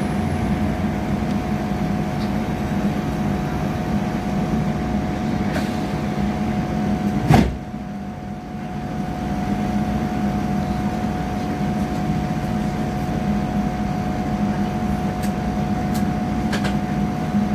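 Passenger train running at speed, heard from inside the carriage: a steady rumble with a constant whine. About seven seconds in there is one sharp, loud bang, after which the noise drops briefly before building back up.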